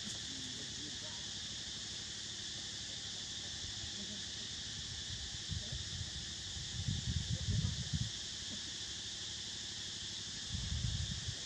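Steady high-pitched drone of insects in forest. Brief low rumbles come in a little past the middle and again near the end.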